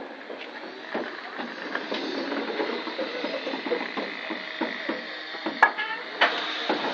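Steam locomotive standing with steam hissing steadily, over scattered small clicks and knocks. There is a sharp click about five and a half seconds in, and a second later the hiss of steam grows louder.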